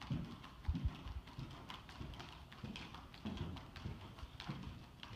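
Hoofbeats of a dressage horse moving over sand arena footing: a run of dull, muffled thuds, the loudest pair just under a second in.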